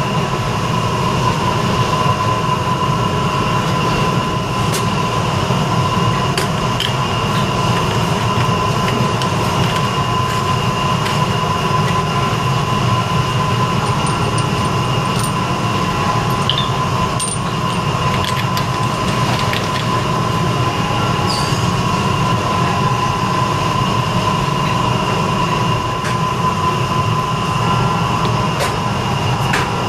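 Steady mechanical hum and low rumble with two constant high whining tones, like ventilation or air-handling noise, with a few faint clicks.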